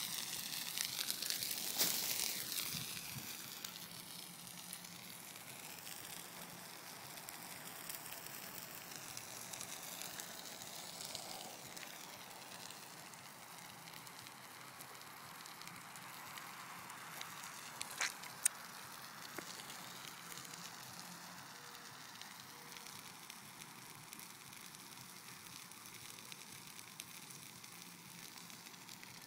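A couch burning in a large open fire, crackling steadily. It is louder for the first few seconds, and there are two sharp pops about eighteen seconds in.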